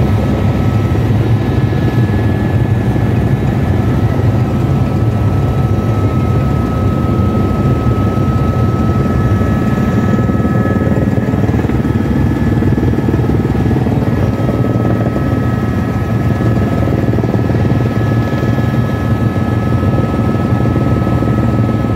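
Helicopter in flight heard from inside the cabin: steady rotor and engine noise with a constant high whine over it.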